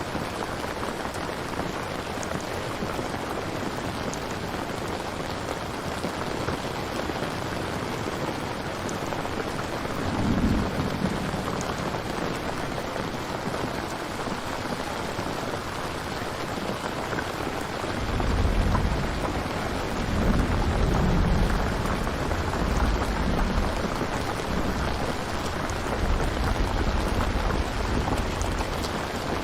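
Steady rain falling, with low thunder rumbling briefly about ten seconds in and again, longer and louder, through most of the second half.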